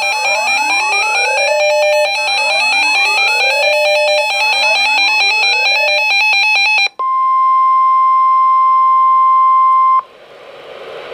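A looping electronic alert sound, rising sweeps repeating about every one and a half seconds over steady high tones, cuts off about seven seconds in. A single steady weather radio warning alarm tone follows for about three seconds, then gives way to radio static hiss.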